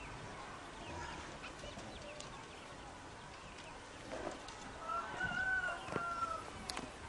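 A chicken gives one short arched call about five seconds in, over a faint rural background, with a couple of light clicks near the end.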